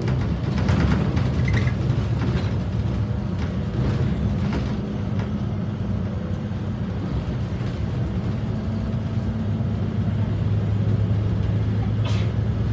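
Interior sound of a Volvo B7RLE city bus under way, its rear-mounted six-cylinder diesel droning steadily as the bus drives along the road. Loose fittings in the cabin click and rattle during the first few seconds, and there is a single sharp click near the end.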